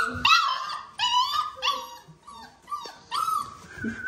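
Five-week-old Boerboel puppies whining and yipping: a string of short, high whines, each rising then falling, about two a second.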